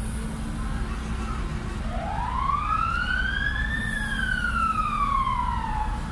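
A siren sounding one slow wail that starts about two seconds in, its pitch rising for about two seconds and then falling away over the next two. A steady low hum runs underneath.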